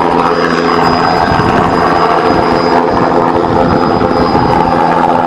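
Helicopter in flight, its rotor chopping steadily and loudly, with a thin high whine running over it.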